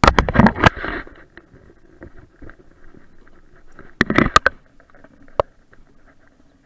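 Handling noise on a body-worn camera: bursts of sharp knocks and rustling as gear and waterproof clothing bump and rub against it. There is a cluster in the first second, another about four seconds in, and a single knock shortly after.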